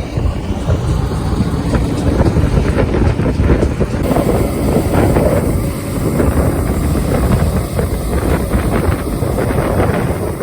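Combine harvester running steadily while cutting wheat, a constant heavy rumble, with wind buffeting the microphone.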